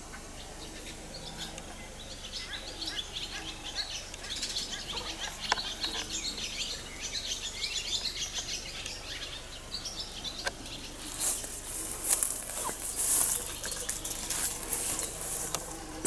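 Small songbirds chirping and singing. About eleven seconds in, a loud burst of rustling and scratching takes over for several seconds.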